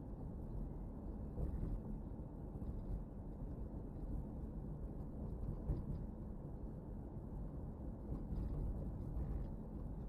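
Car driving along a city street, heard from inside the cabin: a steady low rumble of tyre and engine noise.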